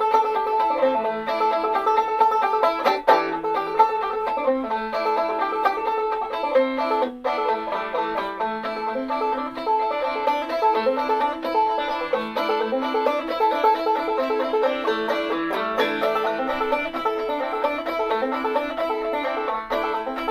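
Banjo playing an instrumental tune, a continuous run of picked notes with no other instruments or voice.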